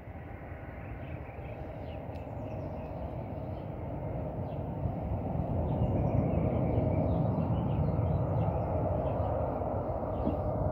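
Airbus A330 airliner on final approach to land, its jet engines a rushing rumble with a steady whine, growing steadily louder as it comes closer.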